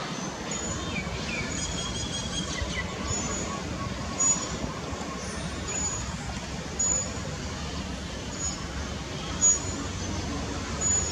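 Steady low rumble of outdoor background noise, like road traffic, with short faint high chirps about once a second and a few brief louder bumps.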